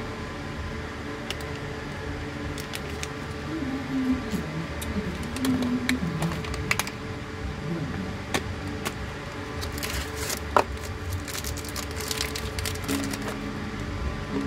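Light clicks and crackles of plastic and foil vape packaging being handled, with a dense patch of crinkling about ten seconds in, over a steady hum in the room.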